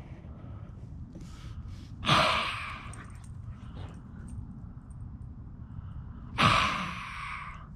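Two loud, forceful breathy blows about four seconds apart, each a sharp rush of air that fades over about a second.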